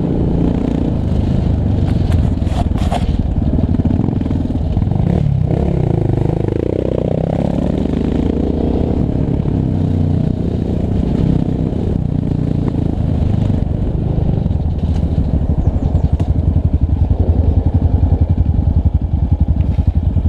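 Yamaha Raptor 700R ATV's single-cylinder four-stroke engine running under load on a dirt trail, revs rising and falling as it rides, with a few knocks and clatter over bumps early on. From about three quarters of the way through, the engine settles into a slower, evenly pulsing low-rev run.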